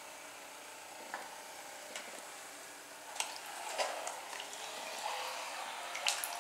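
Small electric motor of a toy bottle boat running with a steady whirr while the boat moves on the water. A little after halfway the boat is lifted out, with splashing and water dripping back into the tray, and a few sharp clicks.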